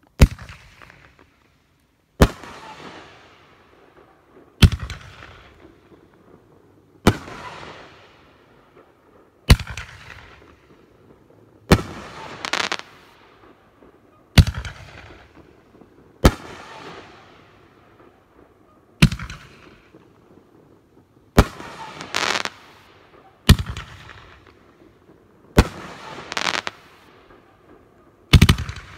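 BoomWow 'Ban Idiots Not Guns' firework cake firing: a sharp bang about every two and a half seconds, each followed by a fading hiss, with a second quick bang close behind a few of them.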